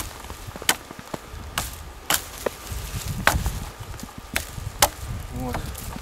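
Hatchet chopping side twigs off the top of a sapling: about eight sharp strikes at uneven intervals.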